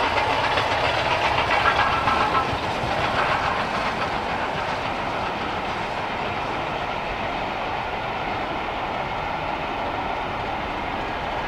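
Steam-hauled passenger train passing at speed behind LNER K4 class three-cylinder 2-6-0 No. 61994 The Great Marquess: loudest for the first couple of seconds as the locomotive goes by, then a steadier sound of the coaches' wheels running over the rails.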